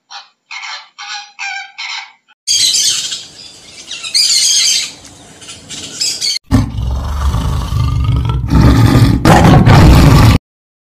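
A run of about six short bird calls in quick succession, then an abrupt change to dense, high-pitched bird chatter. After that comes a louder stretch with a deep rumble under it, which cuts off shortly before the end.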